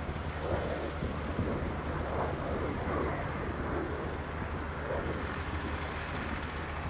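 Distant, steady rumble of an F-16 Fighting Falcon's jet engine as it approaches to land, mixed with wind noise on the microphone.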